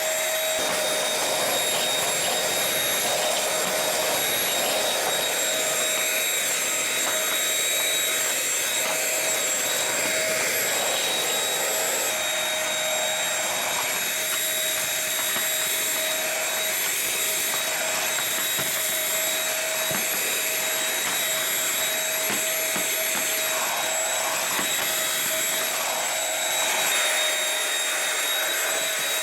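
Dirt Devil SimpliStik stick vacuum running steadily, its motor giving a constant high whine over the rush of suction air.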